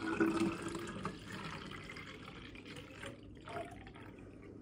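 Water pouring from a large plastic jug into a glass bottle, splashing and gurgling as the bottle fills, with a faint rising pitch in the first second; the pour grows quieter after about a second.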